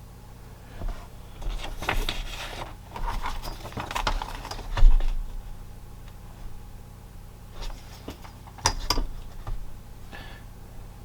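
Scattered clicks, knocks and rustling of small objects being handled, in two clusters, one in the first half and a shorter one near the end, over a steady low hum.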